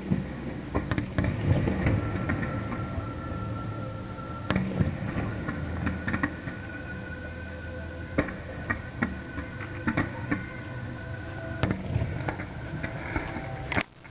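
Fireworks display heard from a distance: a string of scattered pops, bangs and crackles from the bursting shells.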